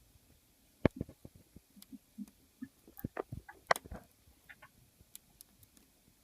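Scattered small clicks and taps of hands and a tool working on an opened iPhone 5, trying to seat the front-facing camera's ribbon-cable connector on the logic board. A sharper click comes just under a second in and another a little past halfway.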